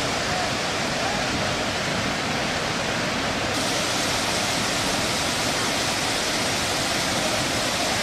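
Floodwater rushing over a lake weir and cascading down a stone spillway: a steady rush of churning water, turning brighter about three and a half seconds in.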